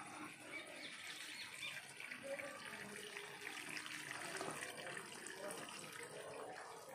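Water from a homemade PVC-pipe garden fountain spraying up in jets and splashing back down into its round tray basin, a steady splashing.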